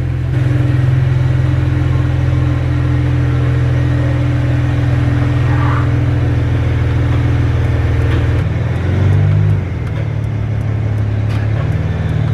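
BMW 335i's twin-turbo inline-six running at a low, steady rumble as the car rolls slowly into the garage. About eight seconds in, the engine note changes and wavers as the car comes to a stop.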